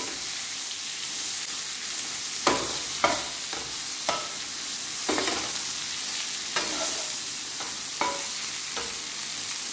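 Stuffed okra frying in hot mustard oil: a steady sizzle, broken by a series of short scrapes and knocks as a spatula stirs and turns the okra against the coated frying pan.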